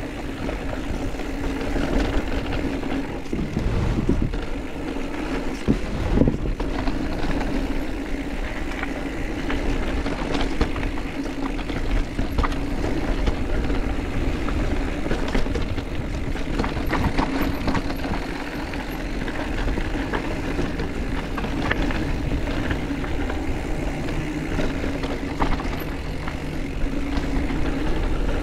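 Mountain bike riding down a trail: continuous rolling and rattling noise with scattered short knocks.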